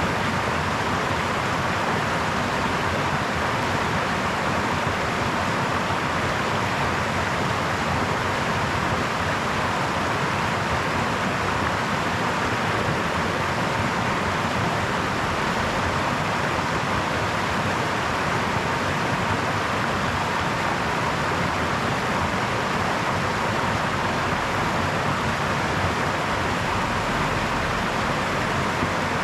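Brook: flowing water making a steady, even rushing noise, unchanging throughout.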